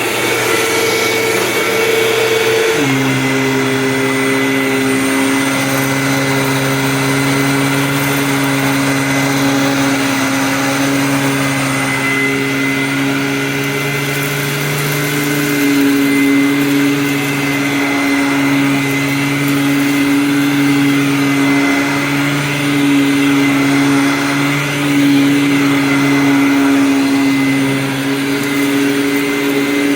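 Hoover WindTunnel Supreme upright vacuum cleaner running, with a steady hum and a high whine. Its motor drops in pitch about three seconds in, as if taking on load, then runs on steadily.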